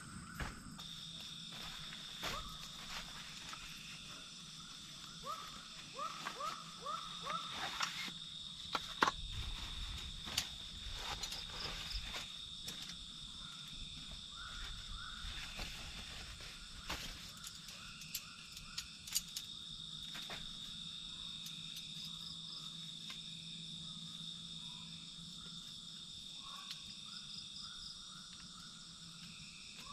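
Night chorus of frogs calling in runs of short rising chirps over a steady high-pitched drone of insects. A few sharp clicks and knocks as camp gear is handled.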